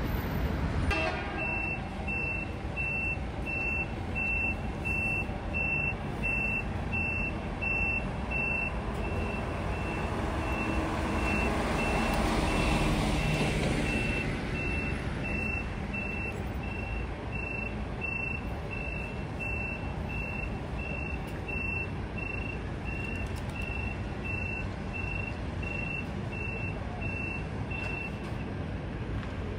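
A bus's reversing alarm beeping about twice a second, one steady tone, over the low rumble of its diesel engine. The beeping fades for a few seconds in the middle while a louder rush of vehicle noise swells, then returns and stops shortly before the end.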